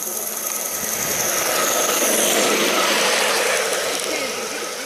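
Large-scale garden-railway model steam locomotive and its tender running past on the track, the sound swelling to its loudest about two to three seconds in and easing off as it moves away.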